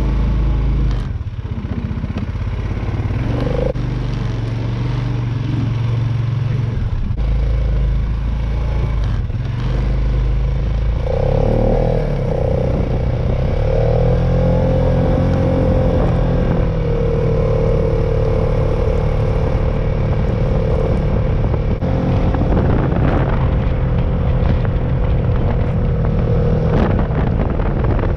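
Four-wheeler (ATV) engine running while being ridden. Its pitch climbs about eleven seconds in and then holds steady, with scattered knocks and rattles.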